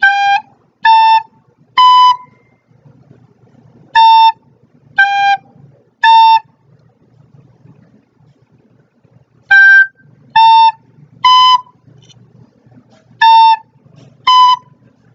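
Recorder playing a simple beginner tune on only three notes, B, A and G: about a dozen short, separate notes in groups of three with pauses between the phrases.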